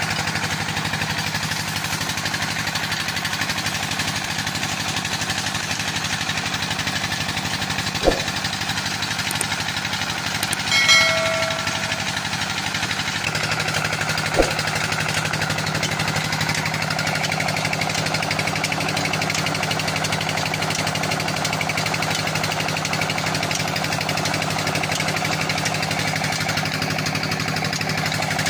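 25 HP diesel engine running steadily with a fast knocking beat, driving a tubewell pump, with water gushing from the outlet pipe. A brief high-pitched tone sounds about eleven seconds in.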